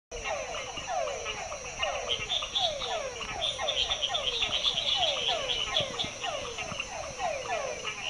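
A chorus of frogs calling at night: many overlapping falling, whine-like calls, about three a second, with quicker higher-pitched chirping calls over a steady high-pitched drone.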